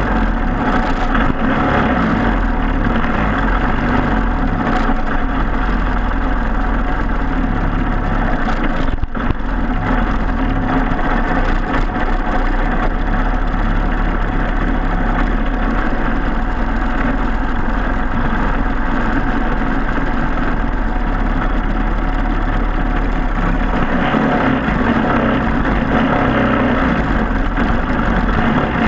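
Racing kart's Briggs & Stratton Animal four-stroke single-cylinder engine running steadily, with a brief dip about nine seconds in.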